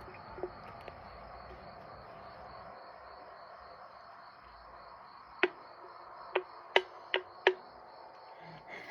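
Crickets chirping steadily in the background. Partway through, five sharp clicks come within about two seconds of each other.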